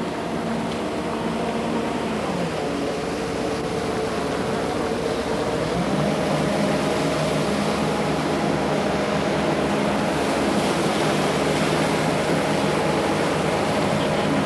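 Motorboat engine running under way over the rush of water and wind, its pitch dropping about two seconds in and rising again around six seconds in as the throttle changes.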